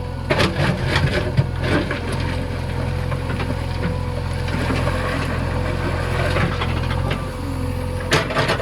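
Backhoe loader's diesel engine running steadily, with a few short knocks over it.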